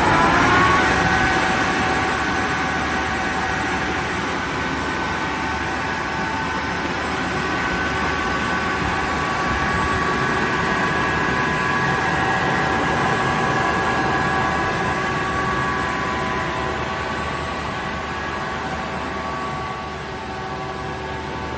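Kaeser SK 25 SFC 15 kW rotary screw air compressor running with its inverter-driven motor, compressing air into the receiver. A steady whine of several held tones over a rushing hiss, rising in pitch in the first second as the inverter brings the motor up to speed, then running steadily and easing slightly in level near the end.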